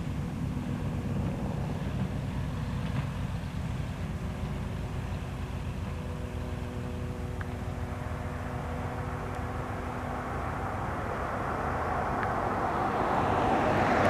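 Cirrus SR20 single-engine piston plane running along the runway, its engine and propeller making a steady drone that grows louder and brighter over the last few seconds.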